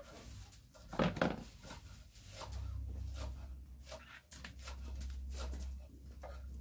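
Irregular knocks of a knife on a wooden chopping board as raw chicken is cut, with a louder muffled thud about a second in and a low rumble through the middle.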